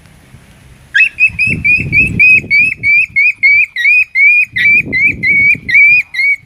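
Small dog whimpering in a rapid, even series of high-pitched yelps, about four or five a second, starting about a second in, with bursts of low noise underneath.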